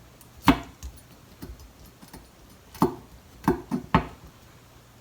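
Knife tip tapping and clicking on a cutting board: one short tap about half a second in, then four more close together near the end, as the knife presses moisture out of raw peeled shrimp.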